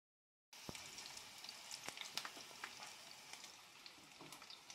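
Chopped onion and garlic sautéing in oil in a nonstick frying pan: a faint steady sizzle with scattered sharp crackles and pops, starting about half a second in.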